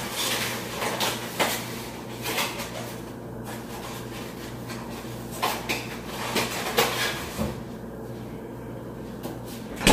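Scattered knocks, clatter and rustling of things being handled in a kitchen, over a steady low electrical hum.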